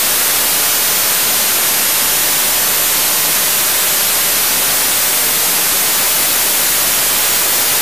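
Steady hiss of static on an old videotape recording, the sound track lost to noise.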